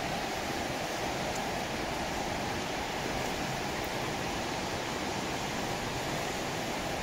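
Heavy rain pouring down, a steady rushing hiss.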